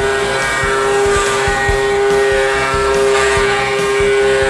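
High-speed spindle of a Centroid A560 5-axis CNC machine whining at a steady high pitch while its cutter mills the ports of an aluminium cylinder head under coolant spray.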